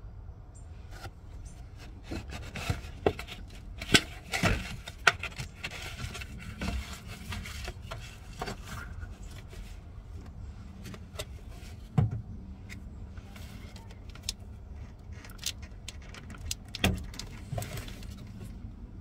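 Scattered clicks, knocks and rubbing from hands and tools working at a clutch slave cylinder's bleed nipple and quick-bleed connector, over a steady low rumble. The sharpest knocks come about four to five seconds in, at twelve seconds and at seventeen seconds.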